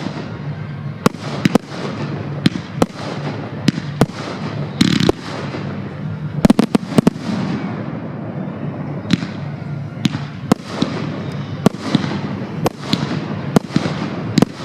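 Fireworks display: aerial shells bursting one after another, with sharp bangs every half second to a second and a quick cluster of bangs about six and a half seconds in. A steady noisy wash from the bursts fills the gaps between them.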